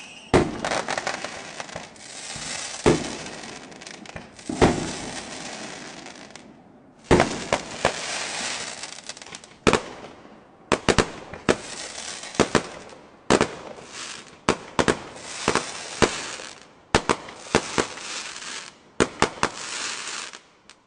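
Fireworks display: a rapid series of sharp bangs from bursting shells with crackling between them. There is a brief gap about six seconds in, and the sound cuts off abruptly several times.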